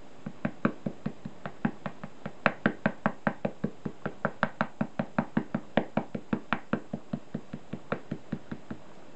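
Sumi-e brush tapping in quick, even knocks, about five a second, for most of eight seconds. The taps grow louder toward the middle and thin out near the end.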